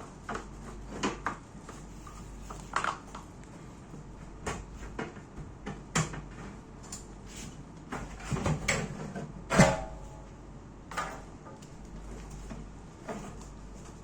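Irregular clicks, knocks and clatter of small parts and packaging being handled, with one louder knock that rings briefly about ten seconds in.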